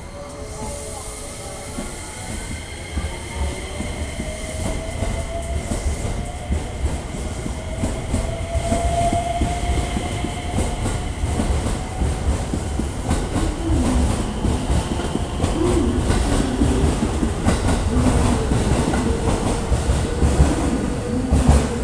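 JR West 225 series and 223 series electric multiple unit accelerating away from a platform. The motor whine rises slowly in pitch and the train grows louder, and the wheels click over rail joints more and more often in the second half.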